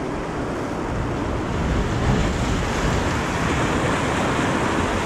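Ocean surf washing over the rocks of a jetty, with wind on the microphone. The wash swells louder about a second and a half in.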